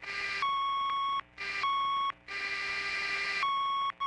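A steady, high-pitched electronic tone sounds in on-off stretches of about half a second. Between them come bursts of radio static hiss, the longest about a second.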